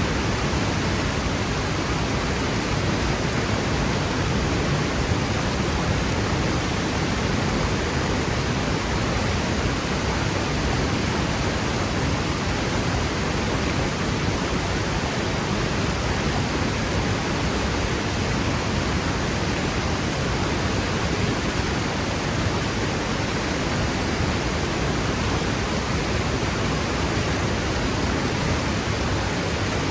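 Waterfall crashing down a rock cliff: a steady, unbroken roar of falling water.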